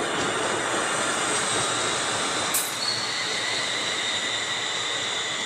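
Passenger train at the platform, a steady rumbling hiss, with a high steady squeal from the wheels setting in about halfway through and a short sharp click just before it.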